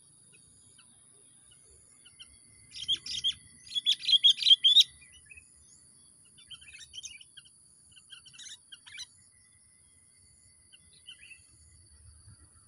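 Small songbird, a decoy (pikat) bird perched in tree branches, calling busily: a quick loud run of sharp chirps about three seconds in, then scattered softer chirps. A faint steady high-pitched whine runs underneath.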